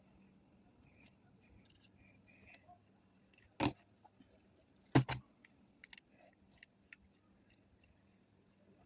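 Metal parts of a Zippo lighter being handled during reassembly: small light clinks and taps, with two sharper metal clacks around the middle, the second one doubled.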